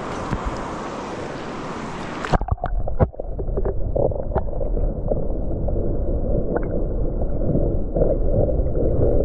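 Shallow river water rushing over stones, then about two seconds in the microphone goes under the surface: the sound turns suddenly muffled and low, a dull underwater rumble and gurgle with a few scattered knocks.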